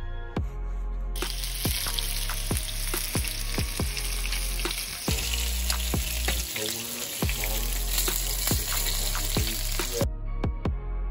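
Breaded squirrel pieces sizzling in hot oil in a skillet. The sizzle starts about a second in and cuts off about a second before the end, over background music with a steady beat.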